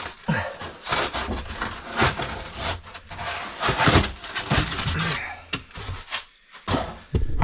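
Rough, irregular scraping and rubbing strokes with a few knocks: hand work on the old kitchen drain pipe and the expanding foam packed around it.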